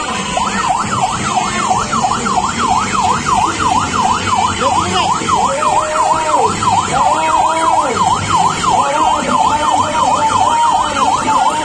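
Electronic fire-engine-style siren in a fast yelp, its pitch sweeping up and down about four or five times a second. About halfway through, slower lower tones join it, each rising, holding and falling over about a second.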